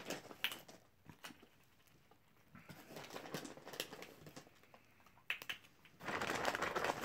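Hollow plastic Easter eggs and candy being handled while the eggs are filled: light plastic clicks and crinkling, growing into louder, steady crinkly rustling from about six seconds in.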